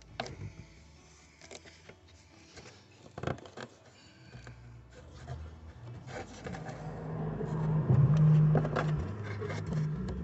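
Clicking and scraping of fingers working the plastic quick-connect fuel-line fitting on a fuel pump module to release its clip. About halfway through, a louder low rubbing noise builds.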